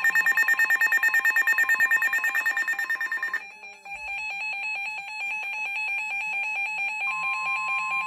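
Eton and Reecom weather alert radios sounding their alarms for a severe thunderstorm warning: fast, even electronic beeping that switches to a different beep pattern about three and a half seconds in. About seven seconds in, the steady NOAA Weather Radio warning tone joins the beeping.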